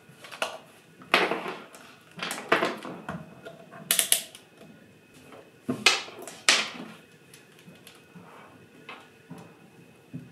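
Handling noise from a multimeter and its test leads on a wooden tabletop: irregular clicks and knocks as the meter is set down and the lead plugs are pushed into its jacks.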